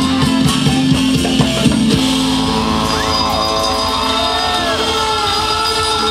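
Live band playing loud amplified music with drums and electric guitar. About two seconds in the beat stops and held notes ring on while the crowd shouts and whoops.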